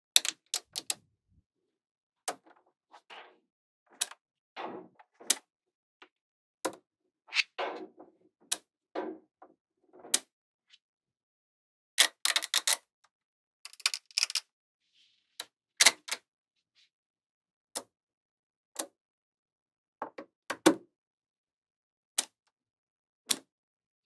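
Small magnetic balls clicking sharply as pieces snap onto a magnetic-ball model, with softer rattling of ball clusters being pressed and shifted between the clicks. The clicks come irregularly, sometimes several in quick succession, with short silent gaps.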